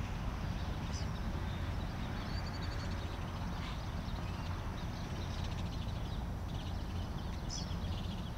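Steady outdoor background with a low rumble and a few faint, high bird chirps, one of them a short trill a couple of seconds in.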